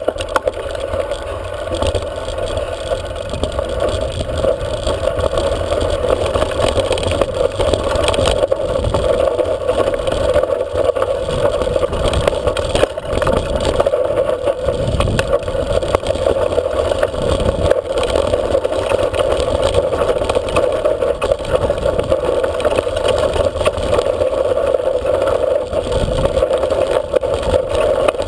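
Mountain bike descending a rocky dirt track at speed: tyres crunching over loose stones and the bike rattling, with scattered knocks, wind rumble on the microphone and a steady buzzing hum.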